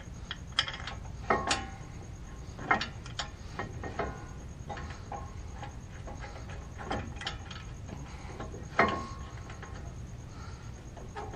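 Scattered metallic clicks and knocks as a brake caliper is worked back onto the rotor and mounting bracket and its bolt holes are lined up. A few knocks ring briefly, and the loudest comes about nine seconds in.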